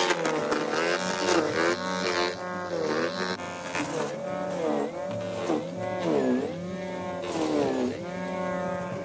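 Electric motor of a Benchmark cordless battery snowblower running with a steady whine. Its pitch dips and recovers about once a second as it bogs under the load of snow being thrown.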